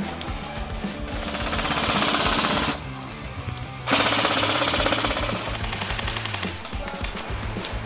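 Airsoft guns firing long full-auto bursts, a fast rattle. The first burst cuts off sharply near the three-second mark and a second starts about a second later. Background music with a steady bass line plays underneath.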